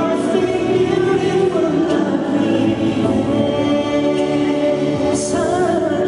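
Live pop concert music: a male singer sings into a handheld microphone over a full band backing, amplified through the arena's sound system.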